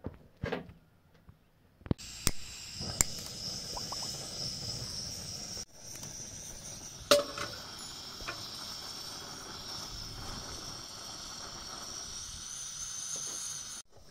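Steady hiss of a cast iron pan of oil heating on a gas burner, with a few light knocks about halfway through.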